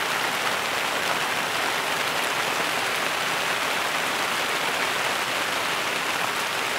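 Steady rain falling on a cornfield and coconut palm leaves, an even hiss that holds at the same level throughout.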